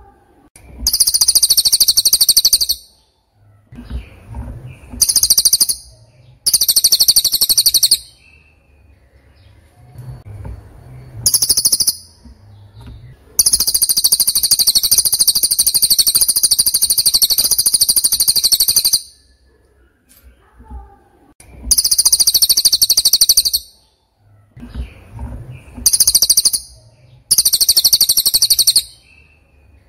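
A bird singing loud, very high-pitched rapid trills in repeated bursts, some under a second and one about five seconds long, with short pauses between them.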